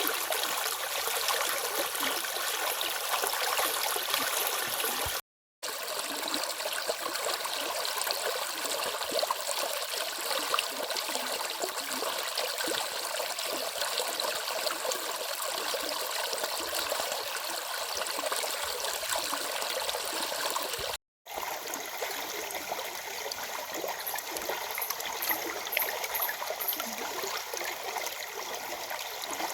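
Water of a small stream running steadily over rocks, an even rushing babble with no let-up. It cuts out to silence twice, briefly, about five seconds in and again about twenty seconds in.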